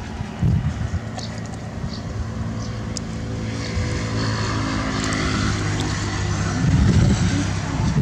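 A motor vehicle's engine running, slowly getting louder over several seconds; wind buffets the microphone near the end.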